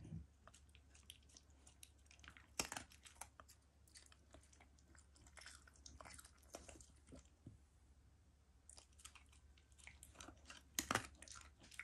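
A Shiba Inu chewing food, a faint run of irregular crunches and clicks. The loudest crunches come about two and a half seconds in and again near the end.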